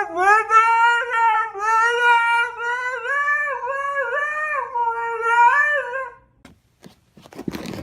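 A dog howling in long, wavering notes that rise and fall like singing, for about six seconds before it stops; a few knocks follow near the end.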